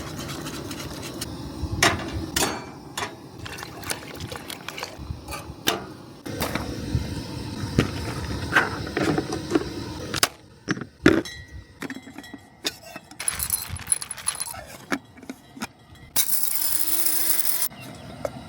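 Camp cooking on a propane cooker: utensils and cookware clinking, knocking and scraping. A steady hiss lasts about a second and a half near the end.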